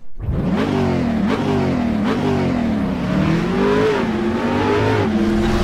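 Car engine accelerating hard, its revs climbing and dropping back several times as it runs up through the gears.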